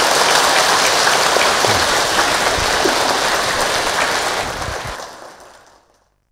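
Audience applauding, a dense steady clatter of many hands that fades away over about a second and a half near the end.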